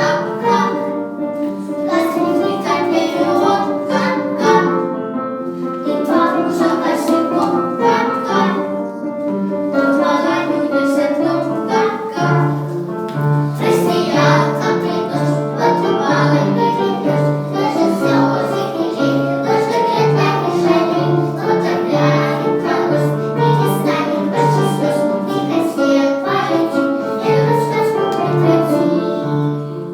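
A group of young children singing a song in unison over an instrumental accompaniment with a steady beat.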